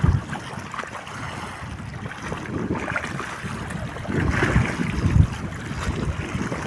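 Wind buffeting the microphone over moving water, with a few sudden low bumps, near the start and about five seconds in.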